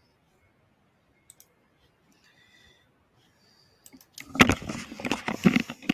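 Near silence, then from about four seconds in a run of loud, irregular clicks and knocks: a headset microphone being handled as it is picked up to be put on.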